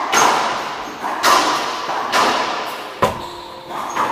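Racquetball rally: the rubber ball struck by racquets and hitting the court walls, about one sharp crack a second, each followed by a long booming echo in the enclosed court.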